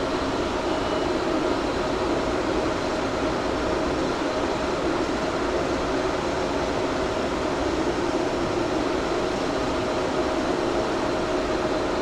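Cooling fans of a GPU mining rig's server chassis running steadily just after first power-on, a constant whoosh of moving air with a steady hum.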